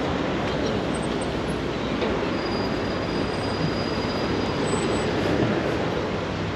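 Steady, dense city street traffic noise, with a thin high squeal held for about three seconds in the middle.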